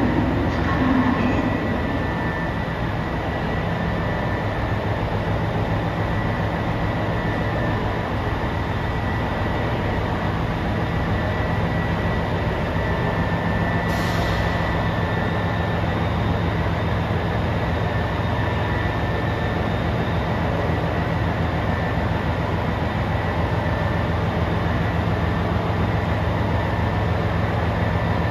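Diesel limited express railcar's engines running steadily: a constant low drone with a faint steady whine above it. A short high hiss sounds about halfway through.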